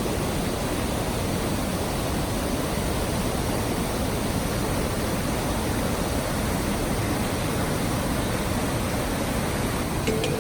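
Waterfall, the steady rush of falling water.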